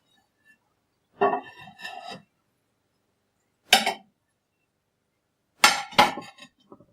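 Dishes being stacked, clinking and clattering in three goes: a short run of clatter a little after a second in, one sharp clink near four seconds, and two knocks in quick succession near the end.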